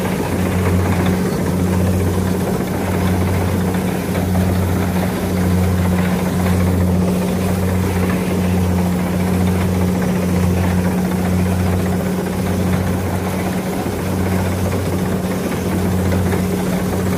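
An engine running steadily at a constant speed, its low hum pulsing about once a second.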